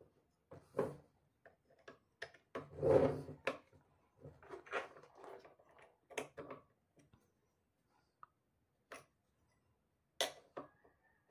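Parts of a homemade AR-style .22 pistol's upper receiver being handled: scattered clicks, taps and rubbing of plastic and metal pieces, with a louder rubbing clatter about three seconds in and a sharp click near the end.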